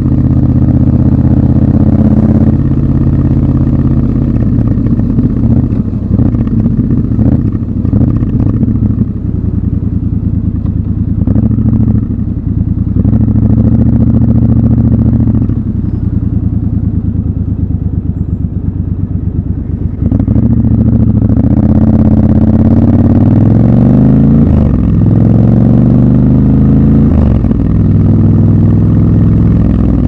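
Triumph Scrambler 1200 XC's parallel-twin engine at low revs, quieter through the middle while the bike idles at a crossing. About twenty seconds in it gets louder as the bike pulls away, the revs climbing and dropping back at each upshift.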